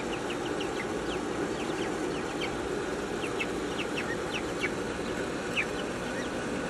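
Chickens making many short, high, falling chirps, scattered irregularly, over a steady low hum.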